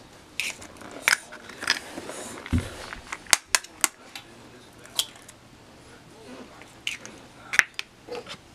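Eggs being cracked by hand: shells tapped and broken over a bowl and the empty halves set down on a tiled counter, a series of sharp cracks and clicks, with a dull thump about two and a half seconds in.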